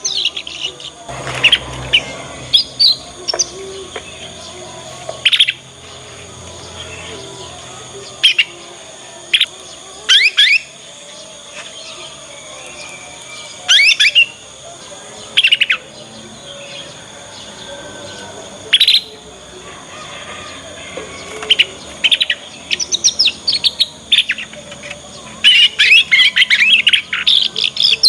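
Young domestic canary practising its early twittering song (ngriwik): short, sharp chirps spaced a second or more apart, breaking into a quick run of twitters near the end.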